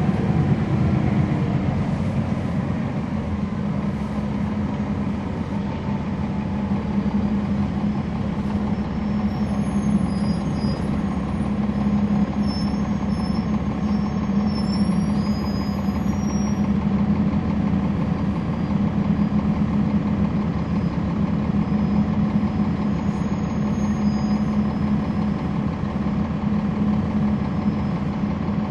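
Inside the cabin of a 2011 NABI 416.15 (40-SFW) transit bus, its Cummins ISL9 inline-six diesel runs steadily. A falling pitch in the first couple of seconds settles into what sounds like an idle.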